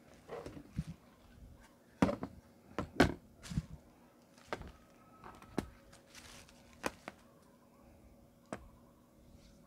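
Handling noises: irregular clicks and knocks as a sound card and cables are set down on an aluminium carrying case, the loudest knocks about two and three seconds in, with brief rustles of plastic wrap.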